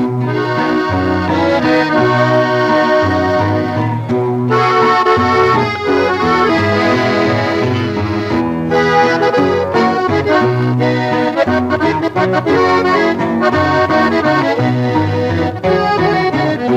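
Norteño ranchera band music in an instrumental break with no singing: an accordion plays the melody over a bass line that steps between low notes.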